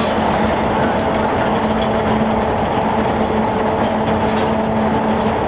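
Automatic box freezing machine running: a steady mechanical drone with a constant low hum.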